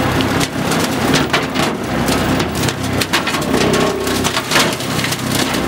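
John Deere 2038R compact tractor's three-cylinder diesel running under load while a Rhino Twister TW25 rotary cutter shreds saplings and dry deadfall. A dense run of crackling and snapping from debris being cut and thrown rides over a steady engine hum.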